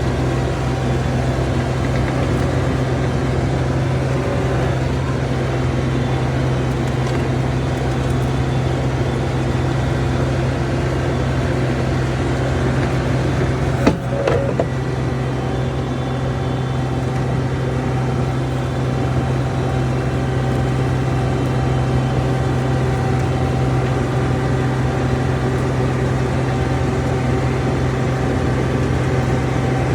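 John Deere 250 skid steer's diesel engine running steadily, heard from on board, a constant low drone. A single sharp knock about halfway through.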